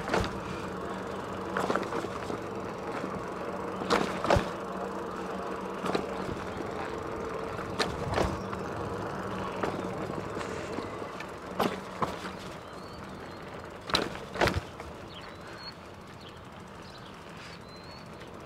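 Fat-tyre e-bike with full suspension riding up and down curbs: the knobby tyres roll on pavement under a faint steady motor whine. Every few seconds come sharp thumps, often in pairs as the front and then the rear wheel hits or drops off a curb and the suspension takes the blow.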